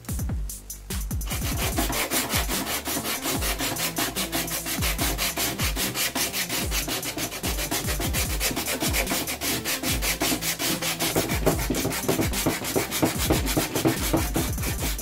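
Hand sanding: a sanding disc held in the fingers and rubbed in quick back-and-forth strokes over the cut end of a chipboard board. The strokes start about a second in, over electronic background music with a steady beat.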